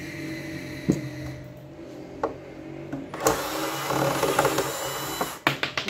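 Cordless electric screwdriver whirring on the screws of a power amplifier's metal case, loudest for about two seconds in the second half, with a quick run of clicks just after it stops.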